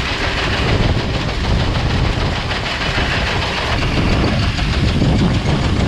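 Farm tractor engine running under a loud, steady rattle and clatter of machinery.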